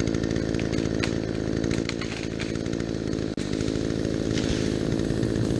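Chainsaw engine running steadily throughout, with a few sharp cracks about one to two and a half seconds in.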